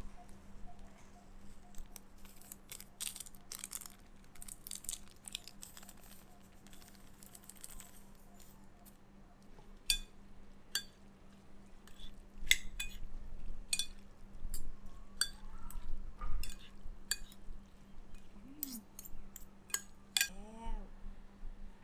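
Cutlery and dishes clinking: scattered sharp clicks and taps of utensils on dishware, coming more often in the second half, with a brief pitched sound near the end.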